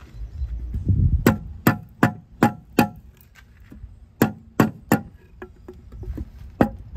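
A series of sharp knocks, each with a brief ringing tail like struck metal. A quick run of five comes about a second in and a run of three near the middle, with a few fainter taps after.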